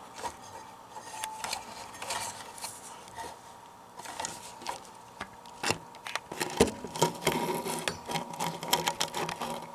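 Handling noise: scattered light clicks and rubbing as wires inside a Palomar Skipper 300 amplifier are moved about and the recording phone is handled. The clicks grow more frequent and louder after about four seconds, over a faint steady tone.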